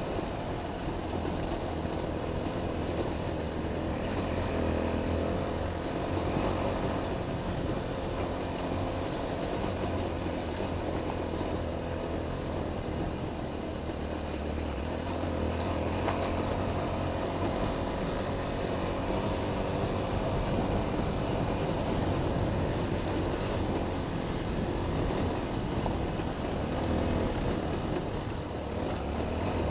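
Honda XR 250 trail motorcycle's air-cooled single-cylinder four-stroke engine running steadily under way, its level rising and falling a little.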